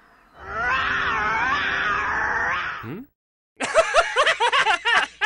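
A loud, wavering vocal cry held for about two and a half seconds, which cuts off abruptly. After a short pause, cartoon characters burst into rapid, exaggerated laughter.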